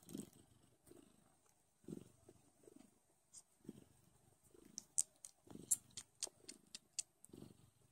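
Don Sphynx kittens nursing: wet sucking with sharp smacking clicks that come thick and fast about five seconds in, over a low purr that swells and fades about once a second.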